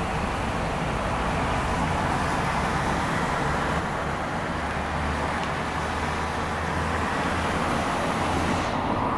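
Heavy downpour: a steady hiss of rain falling on a wet street, with a car driving by on the wet road. Near the end the higher part of the hiss drops away suddenly.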